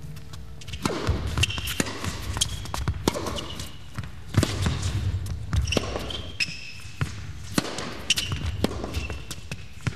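A tennis serve and baseline rally: racket strikes and ball bounces about once a second, with short high squeaks of tennis shoes on the indoor court between the hits.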